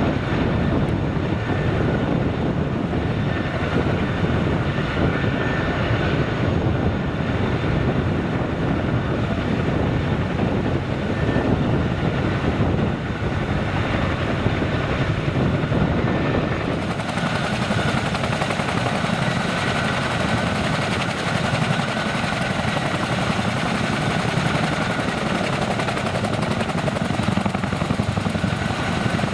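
RCAF CH-147F Chinook's twin turboshaft engines and tandem rotors running steadily on the ground: a dense, loud rotor wash with a thin, steady turbine whine on top. A little past halfway the sound turns brighter and hissier.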